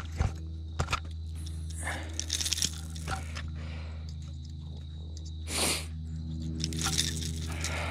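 Close handling noise of a small smallmouth bass held in a plastic fish grip with a topwater prop bait hooked in its mouth: scattered sharp clicks and a burst of crackling about two seconds in, then two short rushes of noise near the end, over a steady low hum.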